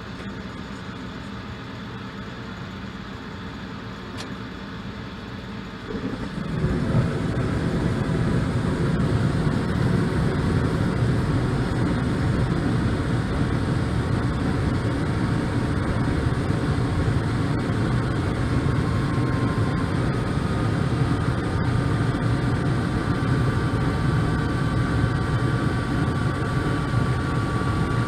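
Carrier gas furnace running: a steady hum, then about six seconds in a louder low rumble starts up, and in the last third a thin, steady high-pitched whine comes in above it. The whine does not come from the inducer blower motor.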